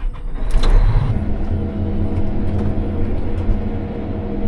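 Combine's diesel engine running steadily after a brief noise about half a second in.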